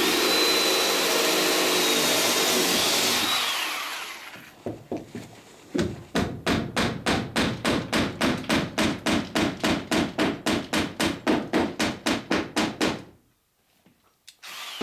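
Cordless drill boring a rivet hole through a boat's rib and planking. Its motor whines steadily for about three seconds, then runs down. A few seconds later comes fast, even tapping, about five knocks a second for some seven seconds, which stops abruptly.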